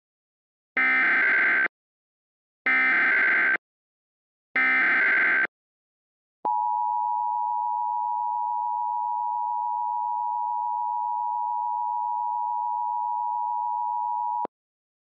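Emergency Alert System SAME header: three short bursts of digital data tones, each just under a second, followed by the EAS two-tone attention signal (853 and 960 Hz sounded together), a steady tone held for about eight seconds that cuts off abruptly. It marks the start of a new emergency alert broadcast.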